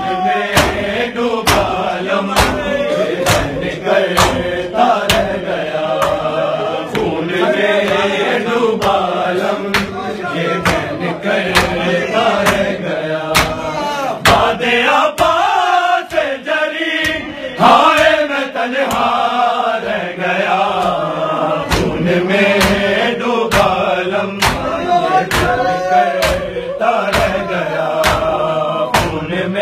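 Men chanting a Shia nauha (mourning lament) together, over steady rhythmic matam chest-beating: sharp hand slaps on the chest, roughly every two-thirds of a second, keeping time with the chant.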